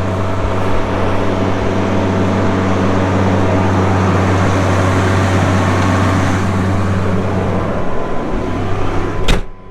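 Tractor engine running steadily under load while pulling a planter through dry wheat stubble, a constant low drone. Near the end a sharp click, and the sound drops away abruptly.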